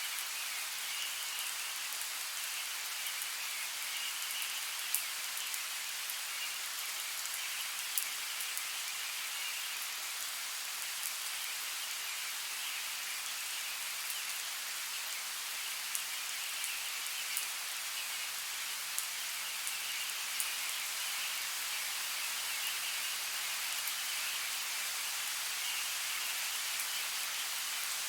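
Steady rainfall in woodland: an even hiss of rain with scattered louder, sharp drop ticks.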